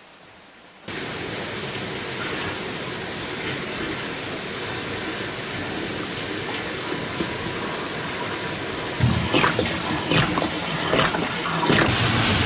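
Water pouring steadily from a plastic jerrycan, starting suddenly about a second in. In the last few seconds heavy rain takes over, louder and more uneven, with splashing drops.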